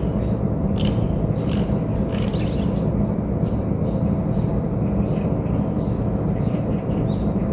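Forest birds chirping and calling now and then, including a brief high whistle about halfway through, over a steady low rumble.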